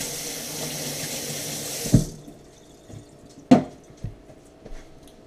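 Kitchen tap running steadily over hands being washed for about two seconds, stopping with a sharp clack. A loud knock follows about a second and a half later, then a smaller one.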